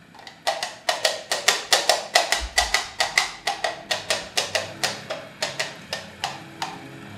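Coconut-shell halves knocked on a tabletop as the sound effect of two horses galloping off: a quick, even clatter of hoofbeats, about four or five a second, that spaces out and stops near the end.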